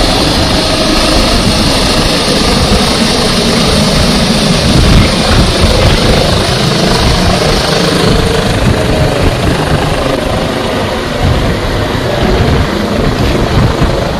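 DRF air-rescue helicopter climbing away overhead, loud rotor beat and turbine noise throughout. The higher turbine hiss dims about eight seconds in as it gains height.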